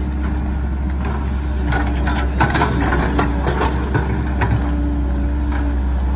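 Caterpillar hydraulic excavator's diesel engine running steadily as it works the bucket, with a handful of short clanks and knocks around the middle.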